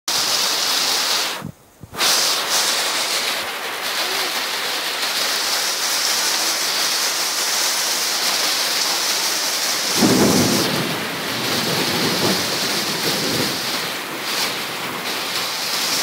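Heavy rain pouring down while rainwater spouts from the top of a roof drainpipe, a steady hiss of falling water. The sound drops out briefly near two seconds in, and a low rumble swells about ten seconds in and lasts a few seconds.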